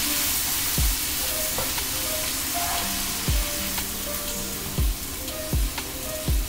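Chicken and onion mixture sizzling in a frying pan while a utensil stirs through it, with a few dull knocks against the pan.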